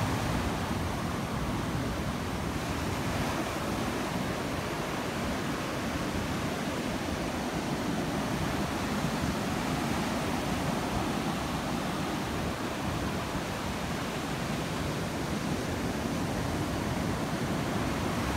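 Ocean surf breaking and washing up the shore: a steady, even rush of waves.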